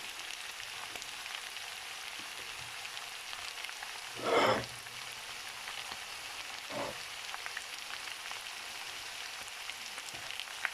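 Vegetables stir-frying in hot oil in a wok, with onion just added to carrots and broccoli, sizzling steadily. A louder brief clatter comes about four seconds in, and a smaller one near seven seconds.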